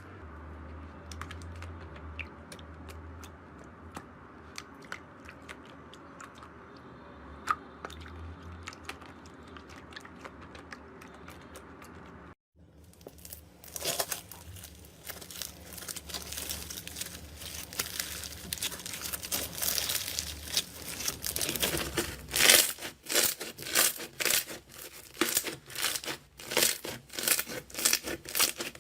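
Slime being handled by hand: faint scattered clicks and pops over a low hum at first, then after a brief gap a louder, denser crackling, which near the end turns into rhythmic crunchy squeezes about twice a second.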